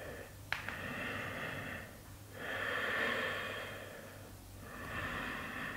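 A woman's Ujjayi breathing: three slow, audible breaths through a narrowed throat, each lasting one to two seconds, with short pauses between them. A small click sounds about half a second in.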